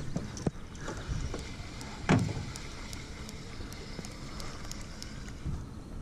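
Handling noise in a small aluminum jon boat: one sharp knock against the hull about two seconds in, with a few light clicks over a low steady background.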